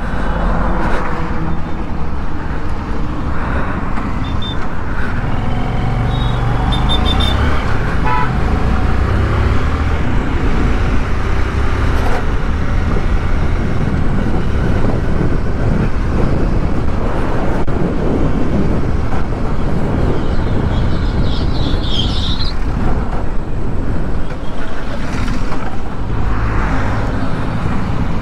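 Riding on a Hero Honda Karizma motorcycle: steady wind rumble on the microphone over the running single-cylinder engine and passing traffic, with a few short horn toots in the first several seconds.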